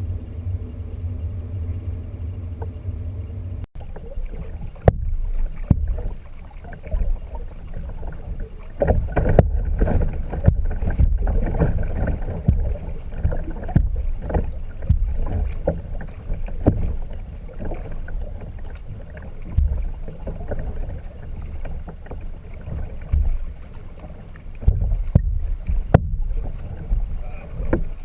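Out kayaking on the water: uneven low rumbling of wind and water on the microphone. A steady low hum in the first few seconds cuts off abruptly.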